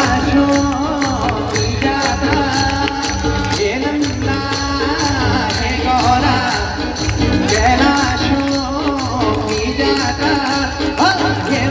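Hindu devotional song sung live and played loud through loudspeakers: a voice singing over a steady percussion beat with jingling hand percussion.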